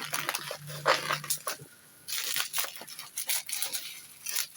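Plastic packaging, bubble wrap and shrink wrap, being pulled and handled, giving irregular crinkling and crackling.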